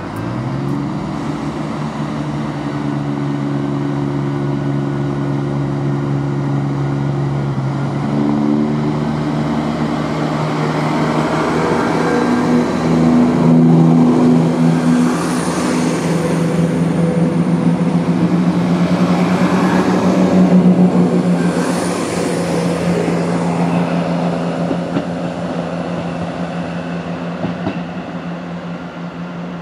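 Class 170 Turbostar diesel multiple unit pulling out of the station, its underfloor diesel engines running steadily and revving up about eight seconds in. The sound grows louder as the cars pass close by, with two brief rushes of noise, then fades as the train moves away.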